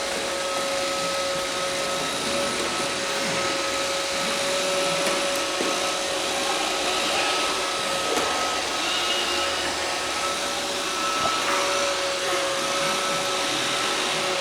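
Roomba robot vacuum running: a steady whirring hiss with a steady whine over it.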